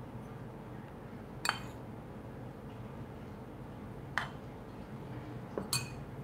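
A metal spoon clinking lightly against small fluted metal baking cups and a glass bowl as stuffing is spooned into the cups: a few separate clinks, a second or more apart, with a closer pair near the end.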